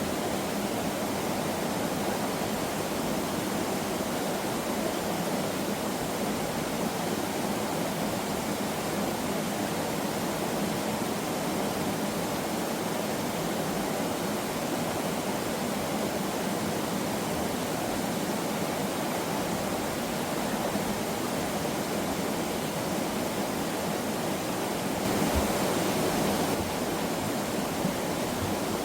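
Steady rush of a mountain valley stream. About 25 seconds in it swells briefly louder for a second or so.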